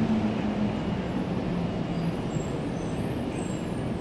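Airport people-mover tram pulling into the station behind platform screen doors, with a steady running rumble and a whine that slowly falls in pitch as it slows.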